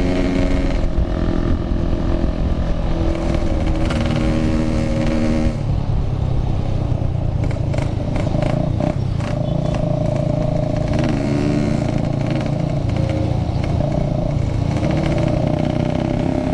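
Yamaha RX-King two-stroke motorcycle engine running under way through a Packing Power exhaust, its pitch dropping about five seconds in and then climbing again near the end as it accelerates. Wind and road noise run underneath.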